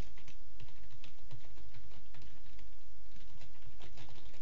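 Typing on a computer keyboard: irregular runs of quick key clicks over a steady low background hum.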